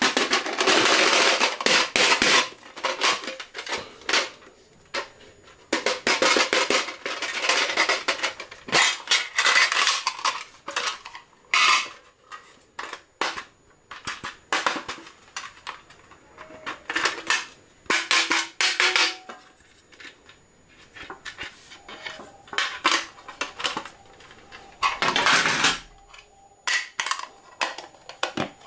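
Metal pencil box being handled by hand: tin lids opening and snapping shut, with metal clattering and clicking. Clear plastic wrapping rustles in the first couple of seconds.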